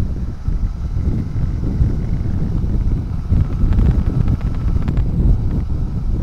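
Wind rumbling and buffeting on the microphone of a moving motorcycle, with the motorcycle's running noise underneath.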